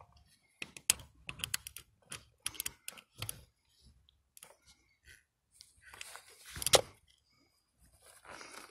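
Irregular sharp metallic clicks and taps of a metal pick working inside the oil pressure sensor port on the engine block, fishing for the sensor's screen filter. A louder scrape comes about seven seconds in.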